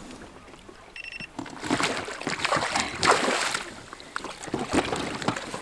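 Water splashing and sloshing at the side of a boat, heaviest for about two seconds in the middle, with a short high beep about a second in and a few knocks near the end.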